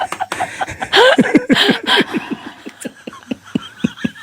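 A person laughing in a long run of short, rapid bursts, loudest about a second in, with the pitch falling on each burst.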